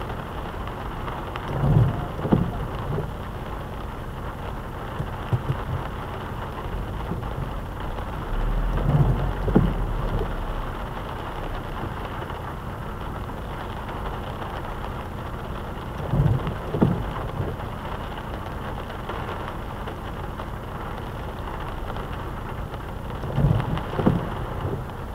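Rain and road noise heard from inside a moving car, with the windscreen wipers on an intermittent setting: about every seven seconds a sweep gives a pair of low thumps.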